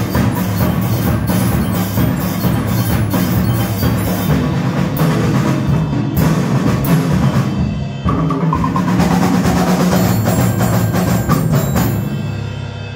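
Percussion ensemble playing: timpani, snare drums, bass drum and marimba struck together in a dense, loud passage. About twelve seconds in the striking stops, leaving a low note ringing and fading away.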